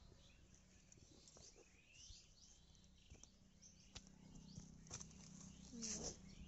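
Near silence outdoors, with faint bird chirps and a few soft clicks. A brief, louder vocal sound rises near the end.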